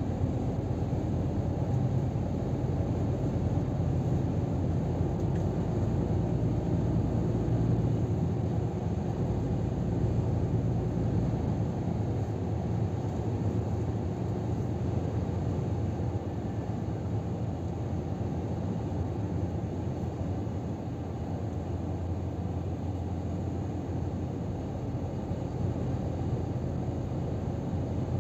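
Steady drone of a Scania R500 truck cruising at motorway speed, its engine and tyre-on-road noise heard from inside the cab as a low, even rumble.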